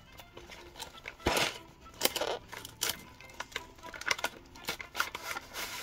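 Shiny foil gift wrap crinkling and crackling as hands peel back tape and unfold it from a boxed present, with a few louder rustles.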